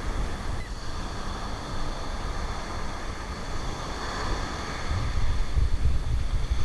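Wind rumbling on the microphone over the steady wash of breaking surf, the rumble growing stronger in the second half.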